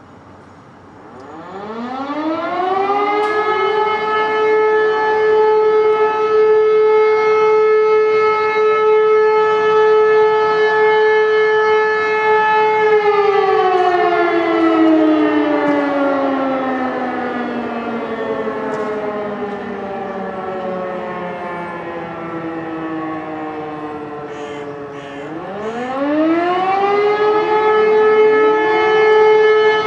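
E57 electromechanical civil-defence siren sounding the fire-alarm test signal. It winds up to a steady tone in the first few seconds and holds it for about ten seconds. It then winds down slowly, falling in pitch as the rotor coasts, and winds up again to the steady tone near the end.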